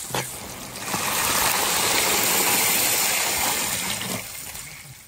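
Water poured in a steady rushing stream into a large iron wok of hot oil and fried seasonings, starting about a second in and fading away near the end.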